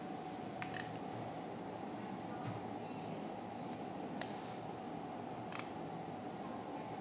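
Steel surgical instruments clicking three times, a needle holder and forceps handled while suturing a skin incision: about a second in, about four seconds in, and again a second and a half later. A steady hum sits underneath.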